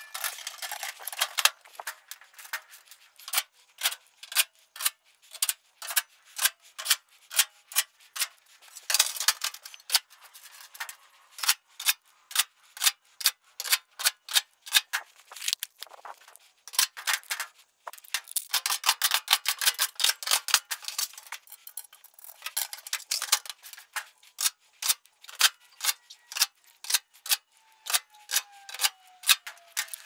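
Rapid clicking and clattering from hand work on a clothes dryer's sheet-metal top panels as they are fitted back together, often at about two clicks a second, with busier stretches of rattling.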